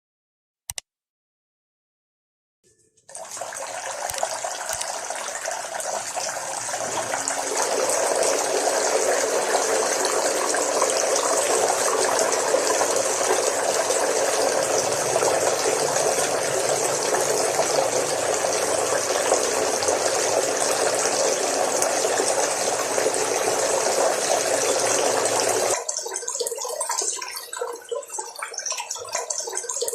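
Water pouring and splashing down a small homemade cement waterfall. It starts suddenly about three seconds in, runs steadily, then turns to a lighter, uneven trickle and splash near the end.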